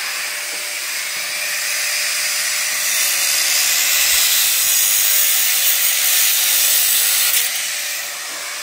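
1400-watt Bosch angle grinder with a cutting disc slicing into a scooter's metal frame: a loud, steady hiss of the disc in the metal over the motor's steady whine, loudest in the middle and easing a little near the end.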